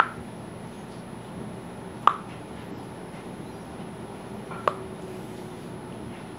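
Homemade slime being stretched and folded by hand, giving three sharp pops: near the start, about two seconds in, and just under five seconds in.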